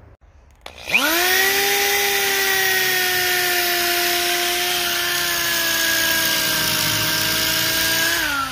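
Electric drill turning a spade bit into the end grain of a western red cedar log. The motor whines up to speed about a second in, holds a steady pitch that sags slightly under load while boring, and starts to wind down at the very end.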